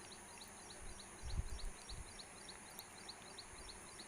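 Faint background: short high chirps repeating evenly about four times a second, over a steady hiss, with a low muffled bump about a second and a half in.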